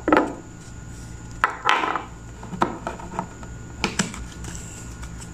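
Several separate taps, clicks and short sliding sounds, a second or so apart, as a tarot deck and a crystal are handled on a tabletop.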